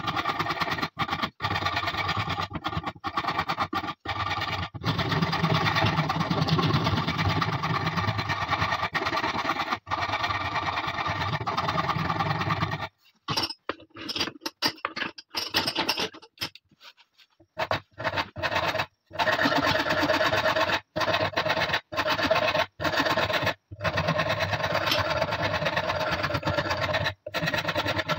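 Coarse wood rasp scraping a wooden shotgun butt stock held in a vise, stroke after stroke with short breaks. About halfway it stops for a few seconds, leaving only a few light knocks and handling sounds, then the rasping starts again.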